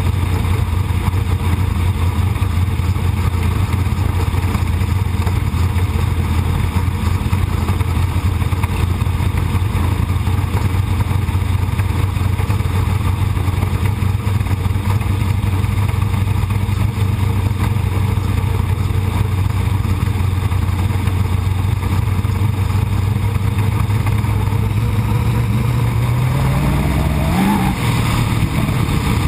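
Sprint car's V8 engine heard onboard from the cockpit, running at a steady speed, then revving up near the end with a quick rise and fall in pitch.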